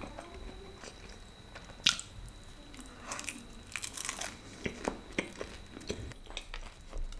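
A person bites into a piece of food, close to the microphone, with one sharp bite about two seconds in. A run of short clicks and smacks follows as the mouthful is chewed.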